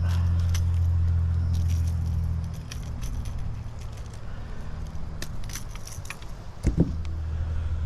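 A boat motor's steady low hum stops about two and a half seconds in, leaving light metallic jangling and scattered clicks. A thump comes near the end as the hum starts again.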